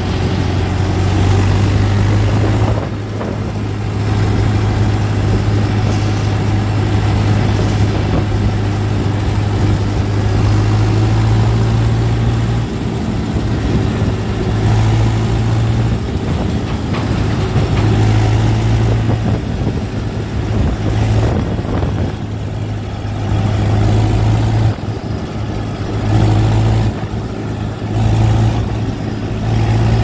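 Swaraj 843 XM tractor's three-cylinder diesel engine running at road speed, heard from the driver's seat: a steady low drone that dips briefly several times in the second half.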